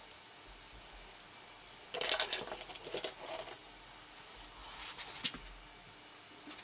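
Light handling noises: scattered small clicks, with a stretch of rustling about two seconds in and another shorter one near the end.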